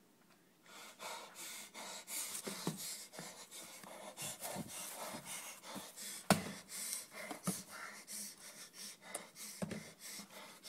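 A person panting and gasping close to the microphone, starting about a second in, with a few short knocks, the sharpest about six seconds in.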